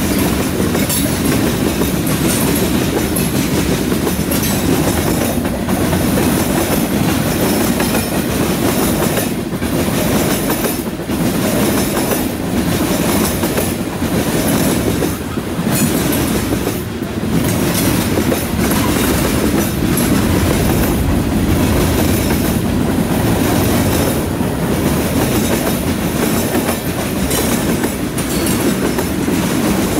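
Freight train's tank cars and covered hopper cars rolling past close by: a steady rumble and clatter of steel wheels on rail, with the clickety-clack of wheels over rail joints.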